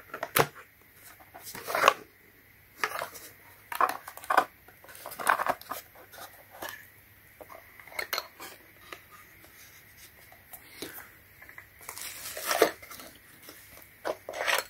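Handling of a small wooden box of countersink drill bits: the metal latch being unclasped, the lid opening, and the steel bits with their countersink collars clinking and rattling against the wood and the white holder. It comes as a string of irregular clicks, knocks and short rattles.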